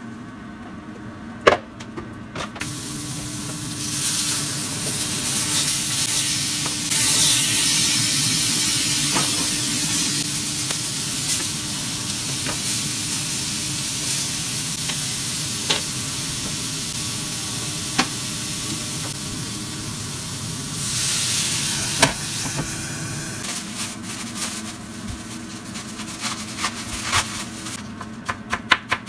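Hamburger steak patties sizzling in a frying pan, a steady hiss that sets in a couple of seconds in and fades near the end. Now and then the spatula clicks against the pan. Quick knife strokes on a cutting board start right at the end.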